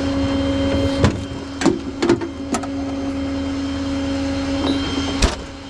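A steady mechanical hum from running tow equipment, with about five sharp metallic clicks and knocks as a tie-down strap is handled and hooked on. The last and loudest knock comes near the end, after which the sound drops a little.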